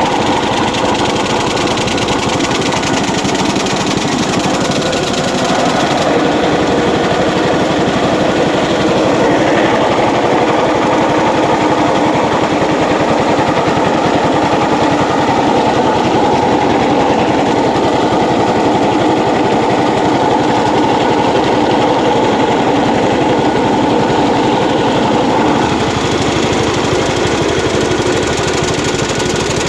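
A motor-driven soybean processing machine running steadily with a continuous mechanical din, a little louder from about six seconds in and easing slightly near the end.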